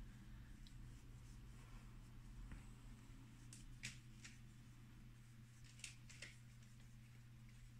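Near silence: room tone with a steady low hum. A handful of faint light clicks and rustles come a little past halfway, from hands working yarn with a crochet hook.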